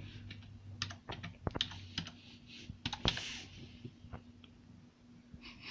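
Typing on a Logitech K480 Bluetooth keyboard: quick, irregular key clicks, sparser near the end.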